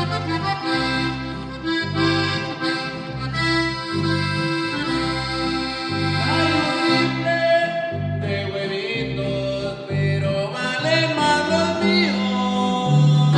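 Norteño-style corrido instrumental: an accordion playing melody and runs over an electric bass line walking in a steady, even pulse.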